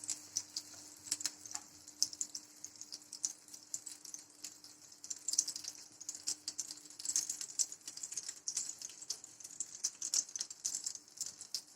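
Sandwiches frying in melted butter in a hot pan: a light, irregular sizzle with dense fine crackles and pops.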